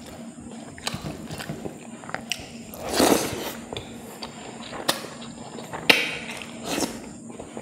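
A person eating fish curry close to the microphone: wet mouth clicks and smacks while chewing. There is a longer, louder sound about three seconds in, and sharp clicks near five and six seconds.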